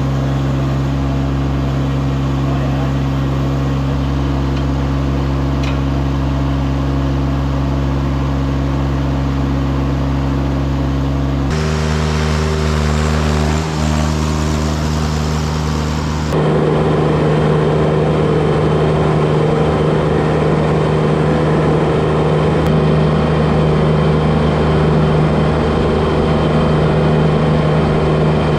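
Kubota D1105 diesel engine of a Baumalight TRL620D mini track loader running steadily. Its note changes abruptly about 11 seconds in, and again about 16 seconds in, after which it is louder.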